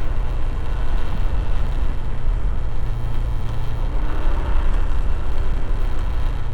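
Motorcycle engine running as the bike is ridden, a steady low rumble with noisy haze above it.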